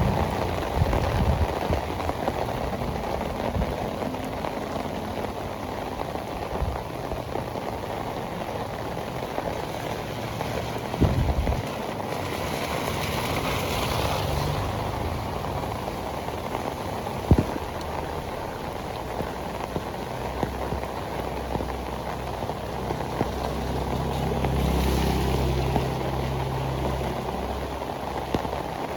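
Heavy tropical rain pouring steadily onto pavement and surfaces. Two sharp knocks come through about 11 and 17 seconds in, and a low rumble swells and fades in the second half.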